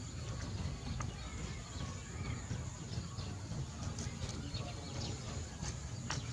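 Outdoor rural ambience: a steady low background with scattered faint bird chirps.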